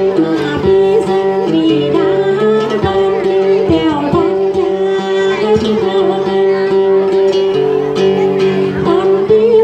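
Tày then music: a đàn tính long-necked lute plucked, with a woman's held, wavering melody line and slow pitch glides over a steady sustained accompaniment.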